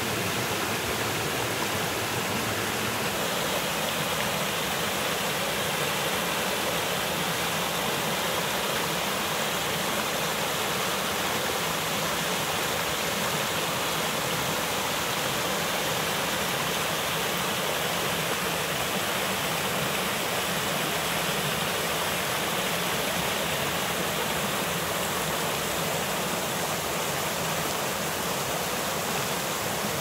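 Mountain stream rushing and splashing down over rocks in a small cascade, a steady even rush of water.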